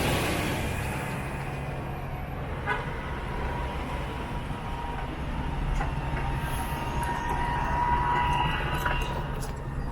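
Street traffic with a large vehicle's engine running, a steady low hum. A thin high tone runs through it and grows louder about seven to nine seconds in.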